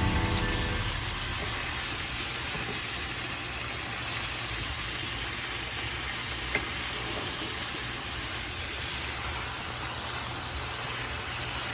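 Food sizzling in a frying pan: a steady hiss, with a faint tick about halfway through.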